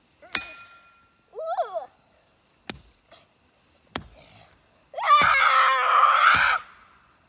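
Sharp strikes of a garden hoe smashing the pieces of a remote-control helicopter: five blows, the first ringing briefly like metal. A child lets out a long, loud scream about five seconds in.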